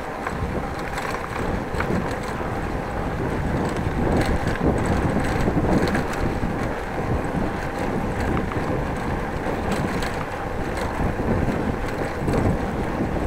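Wind rushing over the microphone of a bike-mounted action camera while cycling, mixed with steady tyre rumble over brick paving and now and then a light rattle from the bike.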